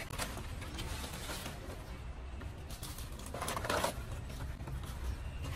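Stiff palm fronds rustling as they are handled and cut with pruning shears, with a louder crunching cut about three and a half seconds in, over a low steady rumble.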